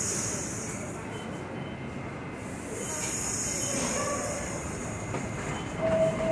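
New York City subway train of R68 cars standing at the platform with its doors open: a steady rumble with a high whine that fades about a second in and comes back about three seconds in.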